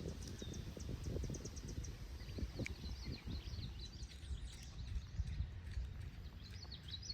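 Small songbirds chirping, with a fast run of trilled notes about a second in and more chirping in the second half, over a steady low rumble and scattered soft low thumps.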